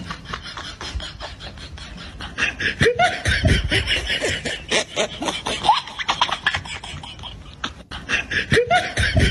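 A person's voice making rapid rhythmic mouth-percussion sounds like beatboxing, about five clicks a second, with a few short yelps that rise and fall in pitch. It gets louder a few seconds in.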